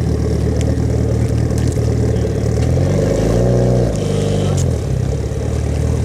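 A car engine accelerating away: its note climbs about two and a half seconds in, drops suddenly about four seconds in as the driver lifts or shifts, then runs on at a lower, steady pitch.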